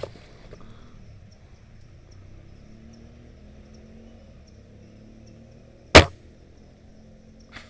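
A single sharp, loud crack of an airsoft gun firing about six seconds in, over a low steady outdoor background.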